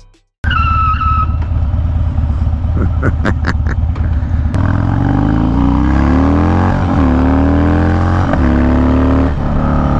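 Harley-Davidson Dyna V-twin with a Bassani Road Rage 3 exhaust, running under way. From about halfway in it accelerates, its pitch climbing and falling back twice.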